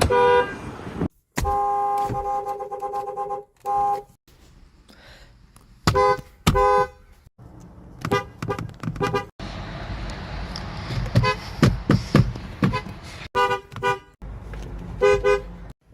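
Fiat Chrysler car horns honking, one clip after another: a long blast early, then pairs and quick runs of short toots, with sudden cuts between clips.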